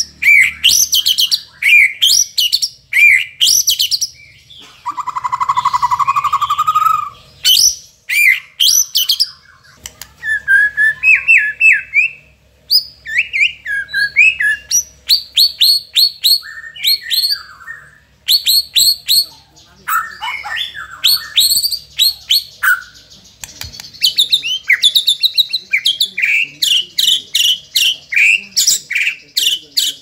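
White-rumped shama (murai batu) singing loudly: a varied song of quick runs of repeated sweeping notes broken by short pauses, with a lower buzzy trill about five seconds in. The song is packed with mimicked phrases of other birds and crickets.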